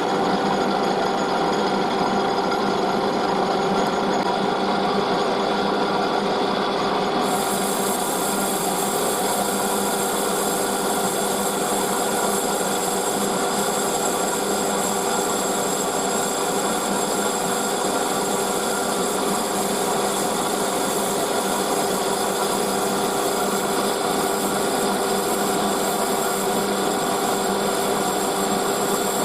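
Metal lathe running steadily and taking a cut, a steady machine sound with several fixed tones. A higher hiss joins about seven seconds in.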